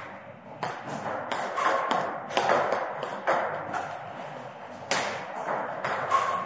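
Table tennis ball clicking off paddles and the table in a rally: sharp ticks every fraction of a second at an uneven rhythm, thinning out for a moment in the middle.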